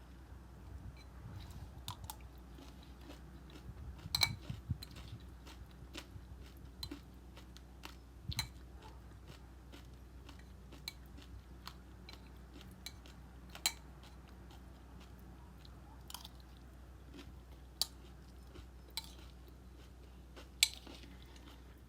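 Close-up chewing of crunchy cereal: a mouthful of granola-style flakes and clusters crunched and chewed, with irregular sharp crackling clicks, the loudest about four seconds in and again near the end.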